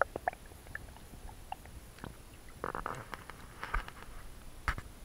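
Scattered clicks, crackles and knocks of water and handling on an action camera's waterproof housing as it is held underwater and brought up out of the water. There are two crackly bursts in the middle and a louder knock near the end.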